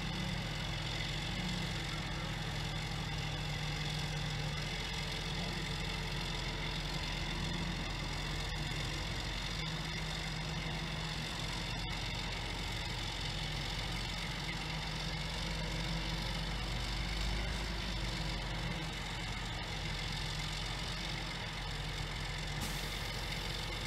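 A crane's engine running steadily at a constant pitch while the crane holds a mast during stepping.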